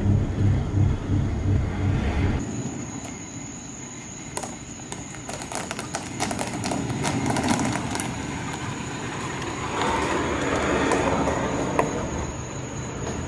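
Mid-size pickup truck driving: first a low engine and road drone heard inside the cab, then, after an abrupt change about two seconds in, the truck heard from outside as it approaches, with scattered crackles and its noise swelling near the end as it pulls up.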